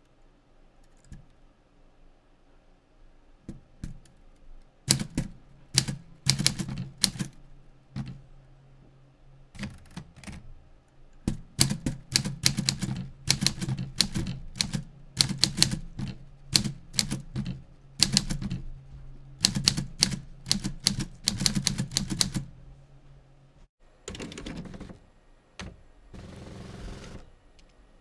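Smith Corona Clipper manual typewriter being typed on: runs of hard, sharp clacking keystrokes with short pauses, over a low steady hum through the busiest stretch. Near the end come two longer rushing sounds.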